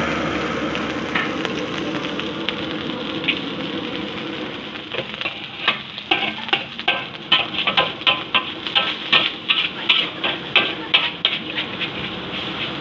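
Metal spatula scraping and clanking against an aluminium wok as fried rice is stir-fried, under a steady hiss. From about five seconds in, the strokes come quickly, two or three sharp clanks a second.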